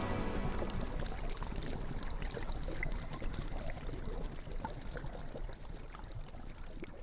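Water noise with scattered small crackles and pops, slowly fading out. Background music dies away in the first second.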